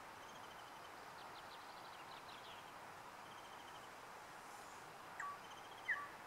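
Faint outdoor ambience with a steady hiss, through which small birds give soft, high chirps and short repeated trills. Two short, sharper chirps or clicks come near the end, the second the loudest.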